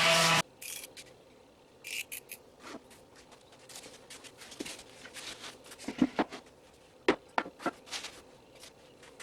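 A motor-driven tool running stops abruptly about half a second in. After that come scattered light scrapes and clicks of hand work, with a few sharper clicks around the middle and near the end.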